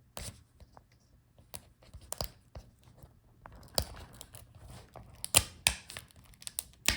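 Small clicks, taps and rustling from hands working at a laptop LCD panel and its video cable connector, with a sharp tick about five and a half seconds in and another near the end.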